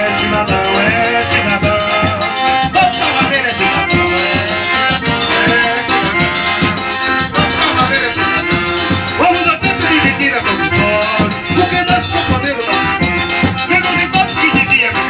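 Live band music from a trio: an instrumental passage with a steady percussive beat.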